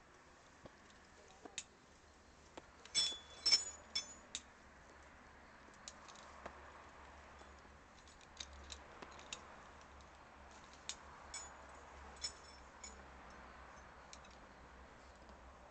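Metal climbing gear, carabiners and hardware, clinking and jingling in scattered bursts, the loudest cluster about three seconds in and a few lighter clinks later on.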